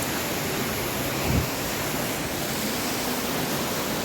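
Steady rushing of a waterfall, with a brief low thump about a second in.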